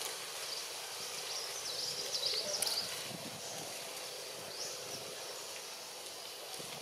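Outdoor ambience with a steady hiss and birds chirping, in quick high calls that are busiest about two to three seconds in, with another short burst near five seconds.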